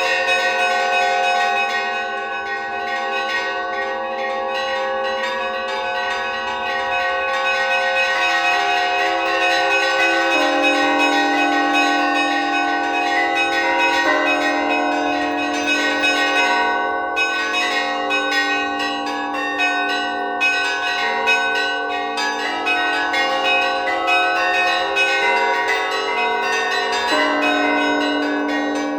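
Orthodox bell ringing improvised on the bells of Kharkiv's Annunciation Cathedral: small bells struck in quick, dense patterns over the ringing of larger bells, with a deeper bell coming in about a third of the way through and again near the end.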